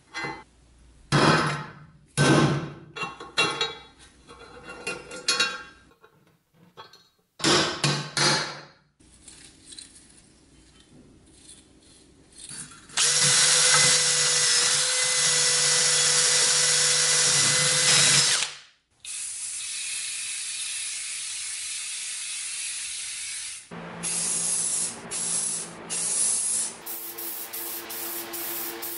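Hammer blows on a chisel, a dozen or so sharp metallic strikes in two clusters, chipping casting scale out of a cast-iron bench-grinder wheel housing. Then a cordless drill spins a wire cup brush against the cast iron for about five seconds, followed by the steady hiss of a spray-paint can, with shorter spray bursts near the end.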